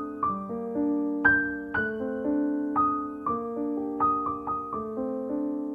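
Slow, gentle piano music: single notes and soft chords struck about every half second, each ringing on, dying away near the end.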